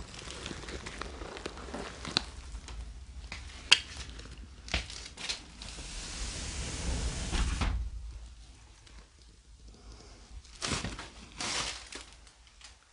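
Footsteps and handling rustle of someone moving over a littered floor, with scattered sharp clicks and knocks. A longer swell of rustling comes about six to eight seconds in, and a few more rustles near the end.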